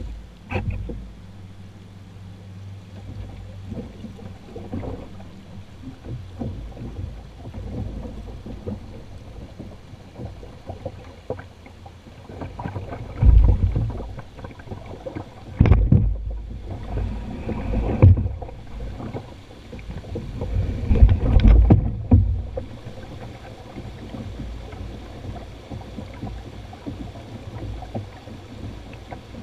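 Shallow river water rushing and gurgling over rocks around a canoe being poled upstream. About halfway through comes a run of heavy, low thumps and knocks.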